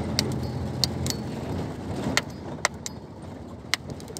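A large knife blade chopping and tapping at a plastic bottle of ice, giving irregular sharp clicks and knocks, about seven in four seconds, over a steady low rumble.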